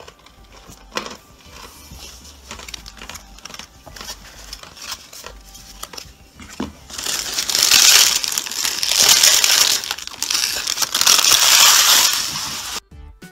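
Empty foil booster-pack wrappers being crumpled by hand. Quiet rustling and clicks come first, then about seven seconds in three loud swells of crinkling that cut off abruptly just before the end.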